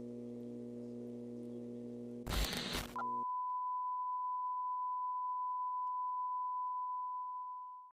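A steady electronic hum with several pitches in it, broken about two seconds in by a short, loud burst of static. Then a single pure broadcast tone near 1 kHz sounds steadily for about five seconds and cuts off suddenly.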